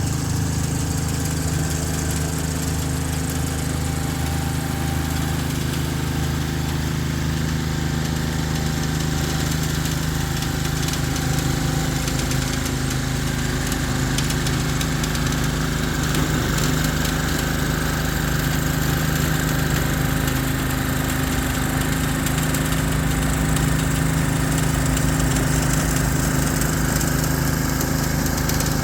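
Ryan GreensAire core aerator's engine running steadily under load while aerating a lawn.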